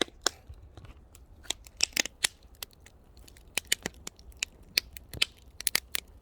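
Wood fire crackling, with irregular sharp snaps and pops from the burning logs.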